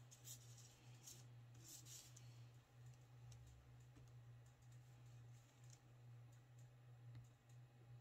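Near silence: a steady low hum, with a few faint light clicks in the first couple of seconds as the back of a paintbrush handle dabs acrylic paint dots onto a wooden clothespin.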